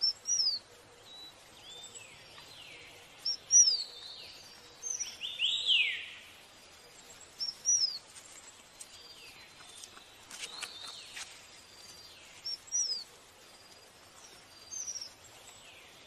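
Small songbird giving short, sharp chirps that slide down in pitch, singly or in quick pairs every second or two. One longer falling call comes about six seconds in, over a faint steady background hiss.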